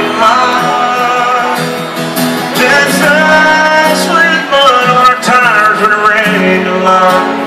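A live country band playing loudly, guitars to the fore, in a stretch without lyrics; a melody line bends up and down over the band.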